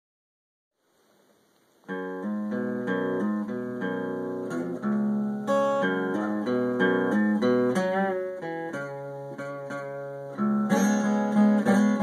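Acoustic guitar played alone, a run of picked notes and chords starting about two seconds in, growing louder with fuller strums near the end.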